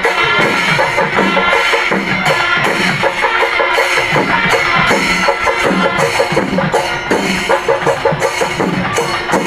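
Loud live procession music led by drums: fast, even drumbeats with held melodic tones sounding over them.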